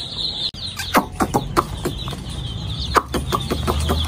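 A shedful of hundreds of chicks peeping together in a steady, high-pitched chorus, with a few sharp clicks among it.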